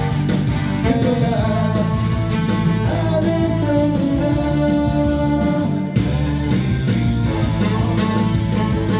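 Saxophone playing a melody in held notes over band accompaniment.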